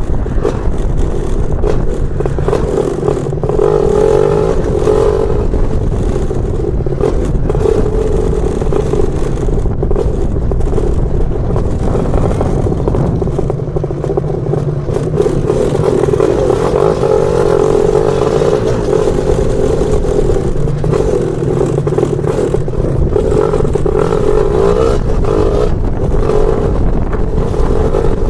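A Lambretta scooter's BFA 325-type two-stroke engine running on the move, its note swelling and easing a little several times with the throttle.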